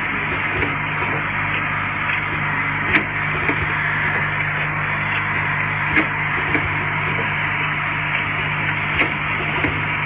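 YX-50G rotary essential-oil filling, plugging and capping machine running with a steady mechanical hum and clatter. A sharp click comes about every three seconds, each followed by a lighter click about half a second later, as the machine cycles.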